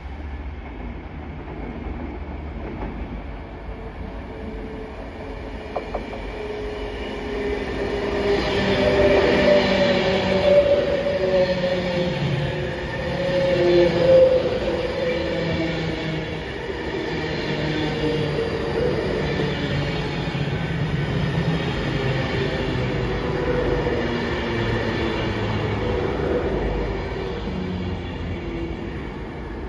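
Avanti West Coast passenger train approaching and running past close by. The rumble of its wheels on the rails builds from about seven seconds in and is loudest a few seconds later as the front passes. It continues steadily as the coaches go by, with several wavering tones over it.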